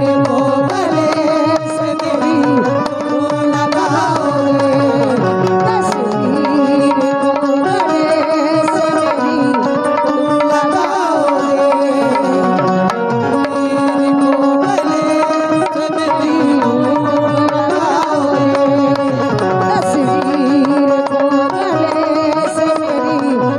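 Live Indian folk ghazal music: a melody on harmonium and voice over a steady hand-drum beat, with a woman singing.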